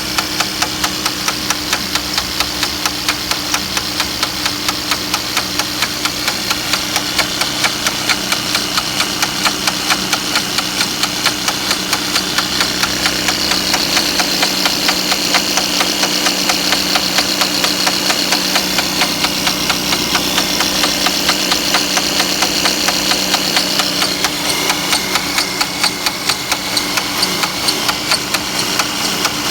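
Mercedes-Benz C180's M274 turbo four-cylinder engine idling, with a rapid, even knocking that repeats throughout. The knock is the fault being shown.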